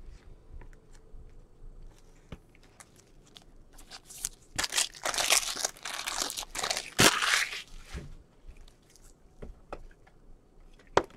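Crinkling and rustling of plastic as a trading card in a clear sleeve is handled by gloved hands. The sound is loudest in a stretch of rustles through the middle, with a few sharp ticks.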